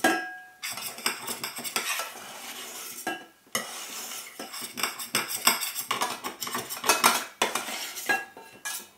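Metal utensil scraping and clinking against the inside of a stainless steel pot while stirring cooked rice. Irregular scrapes and clinks with a couple of short pauses.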